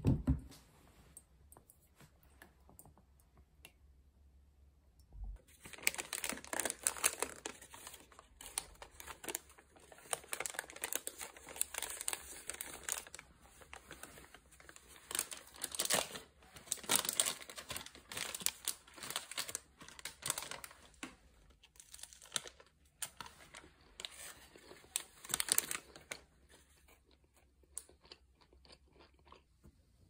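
A short knock at the start, then thin paper crinkling and rustling in irregular bursts for about twenty seconds: a pastry's white paper wrapper being handled and opened.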